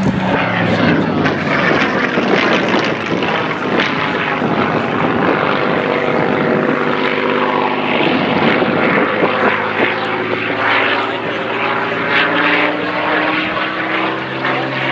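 Supermarine Spitfire PR XI's Rolls-Royce Merlin V12 engine and propeller on a loud display pass. The engine note drops in pitch about half a second in and rises again near the end as the aircraft passes and turns.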